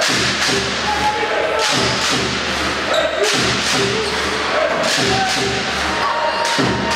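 Basketball being dribbled on a wooden court: repeated thuds, about one every second or two, over a busy background of players and crowd.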